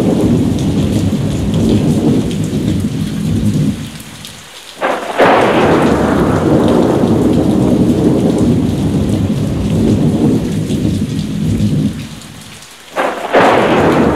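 Thunderstorm with heavy rain: two thunderclaps, about five and thirteen seconds in, each breaking suddenly after a brief lull and rolling off into a long low rumble.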